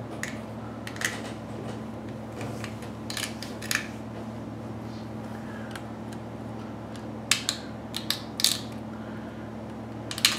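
Scalpel blade shaving and scraping a small plastic tablet button piece: scattered short scrapes and clicks, a few together near the end, over a steady low hum.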